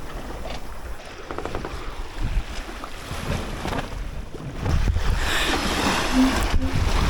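Wind buffeting the microphone over the wash of sea water along a sailboat's hull, growing louder about two-thirds of the way in.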